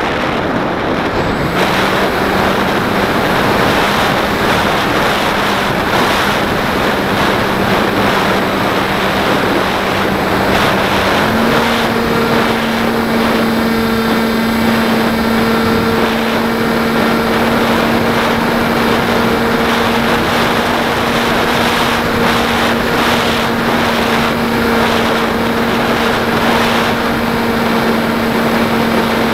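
Beta 1400 model airplane in flight, heard from its onboard camera: loud wind rush over the microphone, with the motor and propeller humming a steady tone that comes in about a second and a half in and steps up slightly in pitch about halfway through as the throttle is raised.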